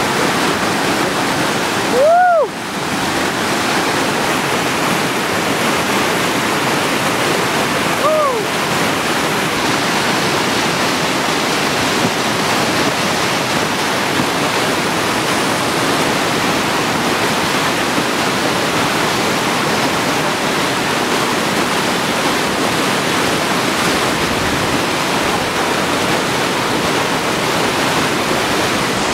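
Steady rush of whitewater: a river wave breaking and churning in rapids. Two brief rising-and-falling calls cut through it, about two and eight seconds in, the first the loudest moment.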